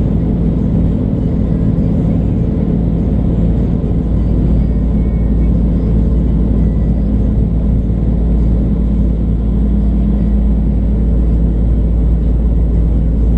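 Classic car engine idling, a steady deep rumble that holds an even pitch without revving.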